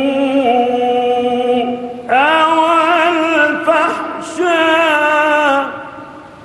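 A male Quran reciter chanting in the melodic tajwid style, holding one long note, then after a short breath about two seconds in rising to a higher, ornamented, wavering phrase that fades out near the end.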